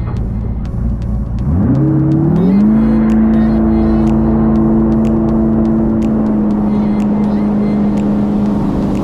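A jet boat's LS3 V8 engine is at a low rumble, then revs up quickly about a second and a half in and holds a steady high pitch as the boat gets under way to tow a kneeboarder.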